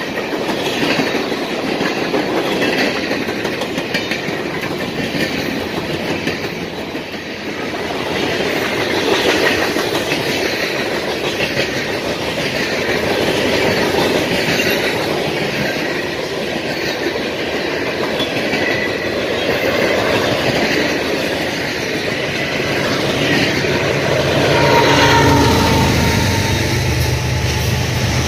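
Freight cars of a CSX mixed freight train rolling past close by: a steady wheel-on-rail rumble with clickety-clack over the rail joints and intermittent high wheel squeals. A low steady hum joins in over the last few seconds.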